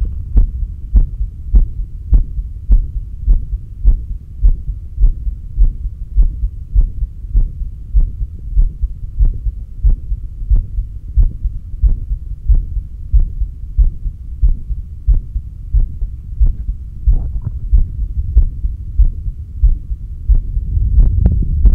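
Human heartbeat heard through a stethoscope on the chest at the heart's apex: steady, evenly spaced thuds a little faster than one a second. A low rumble swells in near the end.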